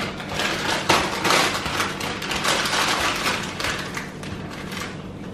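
Plastic bag of frozen mango being handled and opened, the packaging crinkling in a run of short, irregular rustles.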